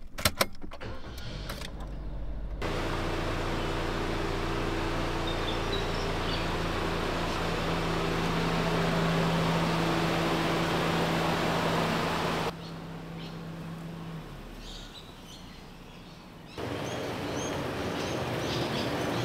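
A few clicks, then a car engine running steadily at low speed as a vehicle is moved, with the sound dropping away abruptly partway through and coming back a few seconds later.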